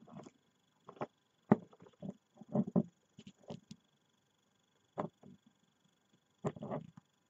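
An action figure being handled and repositioned by hand: scattered knocks, clicks and soft rubbing, the sharpest knock about a second and a half in, with a small cluster near the end.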